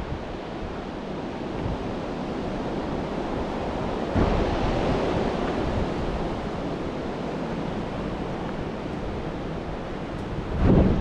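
Wind blowing steadily outdoors, with gusts buffeting the microphone about four seconds in and again near the end.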